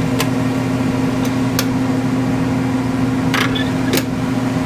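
Steady, loud hum of a shop heater, with five sharp clicks scattered through it.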